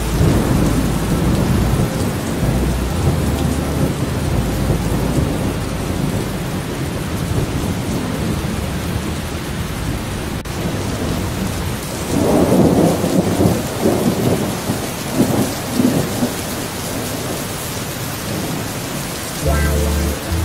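Steady rain falling, with thunder rumbling low through the first few seconds and a louder roll of thunder from about twelve to sixteen seconds in.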